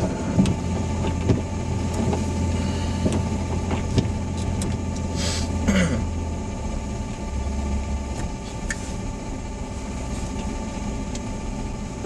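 Car interior with the engine running, a steady low hum for about the first six seconds and again briefly near eight seconds, a few light clicks, and a short hiss around five seconds in.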